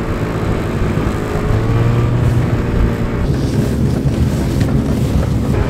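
Snowmobile engine running steadily, heard from on board while riding, with wind buffeting the microphone.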